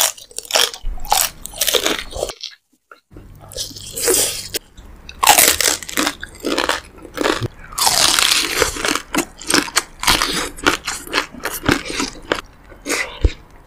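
Close-miked eating of braised pork leg: a run of biting and chewing noises, sharp and crunchy, with short pauses between mouthfuls.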